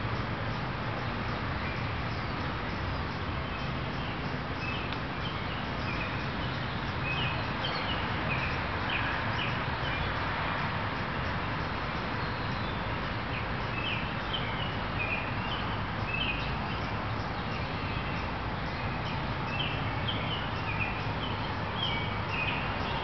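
Small birds chirping now and then, the short chirps coming in little clusters, over a steady background of hiss and low rumble.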